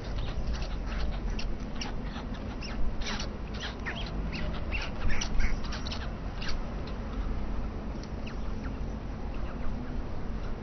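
White stork (Ciconia ciconia) coughing or hacking: an irregular run of short harsh rasps, as if trying to expel something, thinning out after about seven seconds. A steady low rumble lies beneath.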